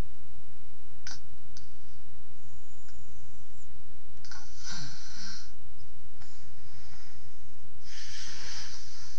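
Snoring: noisy, rasping breaths every few seconds, the loudest about four and a half and eight seconds in, over a steady low hum.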